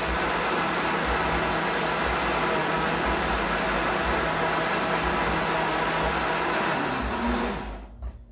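Electric countertop blender running at speed, blending juice, with a steady motor hum under the whirr of the jar. It is switched off near the end and the motor winds down to a stop.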